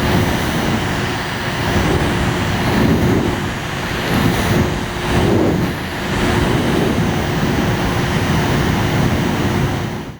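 A small electric fan running: a steady whir of rushing air over a constant motor hum, stopping abruptly at the end.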